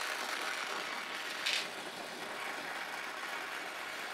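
Victor oxy-fuel torch with a number one welding tip, run soft, its flame hissing steadily while heating a brazing joint. The sound is briefly louder about a second and a half in.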